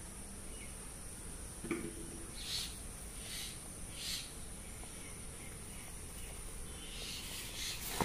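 Common myna chicks giving short, harsh, hissy calls: three single calls a little under a second apart, then a cluster of them near the end, over a steady high hiss.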